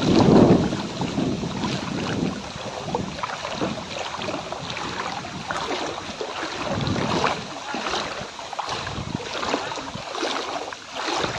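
Floodwater sloshing and swishing roughly once a second as someone wades forward through it, with wind buffeting the microphone in the first moment.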